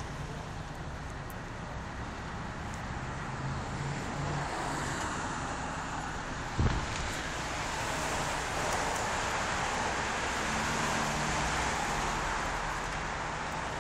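Street traffic noise with a vehicle engine idling as a low steady hum. There is a single sharp knock about halfway through, and the traffic rush swells a little in the second half.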